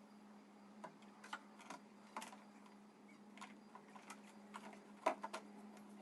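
Scattered light clicks and taps, about a dozen, the loudest a little after five seconds in, from handling the new oil filter and its parts during an oil change, over a faint steady hum.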